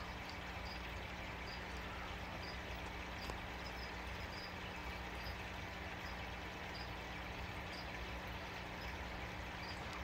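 Steady low hum and hiss of aquarium equipment, with faint short high-pitched chirps repeating irregularly about twice a second.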